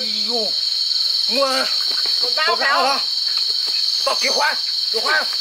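Steady, high-pitched insect drone, with short pitched vocal calls breaking in about once a second.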